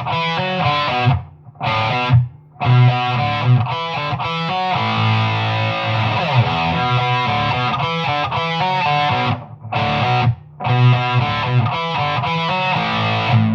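Electric guitar played through a Boss Metal Zone distortion pedal: heavily distorted riffs, broken by a few brief silent stops between phrases.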